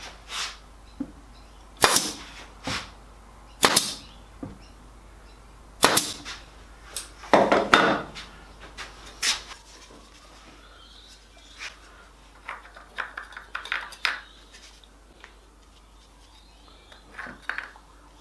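Pin gun firing pins into blackwood edging strips: a sharp shot every two seconds or so through the first eight seconds, then lighter knocks and taps of handling.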